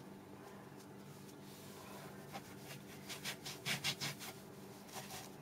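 A plastic fondant cutter being pressed down hard by hand into rolled-out sugarpaste on a floured board: a quick run of soft knocks and rubbing scrapes, strongest a little under four seconds in, with a couple of fainter taps near the end.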